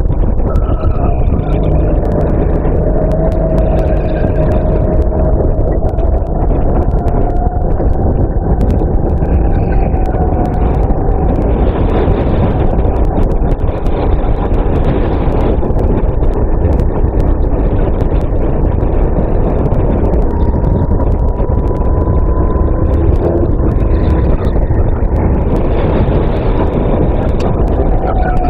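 Racing kart engine heard from the onboard camera, running hard with its pitch rising and falling slowly as the throttle changes, over heavy wind rumble on the microphone.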